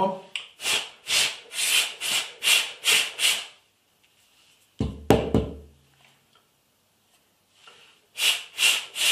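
Short, hard puffs of breath blown into a smartphone's bottom microphone opening to drive out water that got in: about six in quick succession, a single low thump about five seconds in, then four more puffs near the end.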